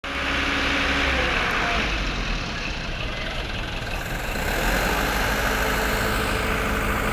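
Dump truck engine running steadily, a low hum with a constant hiss above it.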